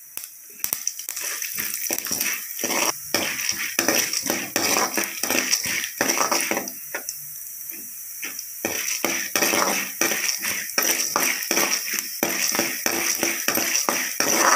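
A metal spoon scraping and clinking repeatedly against an aluminium kadai as chana dal and urad dal are stirred in hot oil for tempering, over a steady sizzle.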